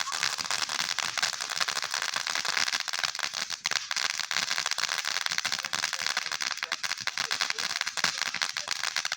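Snow cone fountain firework spraying sparks with a dense, continuous crackling hiss.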